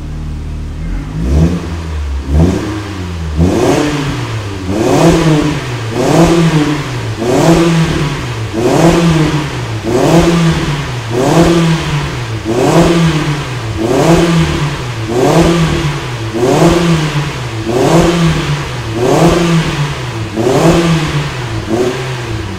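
Mitsubishi Lancer 2.0's four-cylinder engine revved through a newly fitted 'saxophone' rear exhaust muffler: after a moment at idle, over a dozen short rev blips follow at an even pace, each pitch rising and falling, about one every second and a half, and the revving eases off near the end.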